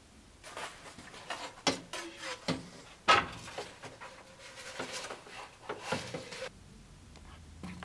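A run of irregular knocks, clatters and scrapes from something being handled inside a tall upright metal pipe, with the sharpest knock about three seconds in.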